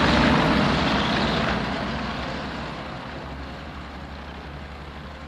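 Engine and road noise of the vehicle the camera rides on, a steady rushing rumble that fades away gradually.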